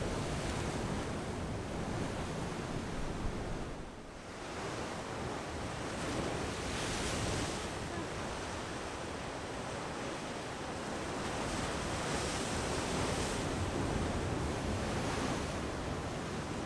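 Ocean swell and breaking surf washing continuously, with wind on the microphone. The wash dips briefly about four seconds in, then swells in several surges.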